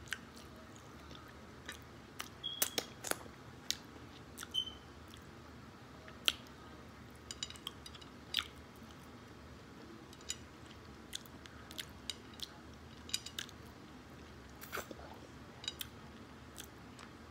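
A person chewing and biting barbecue ribs close to the microphone: scattered sharp wet mouth clicks and smacks, some in quick runs, between quieter stretches.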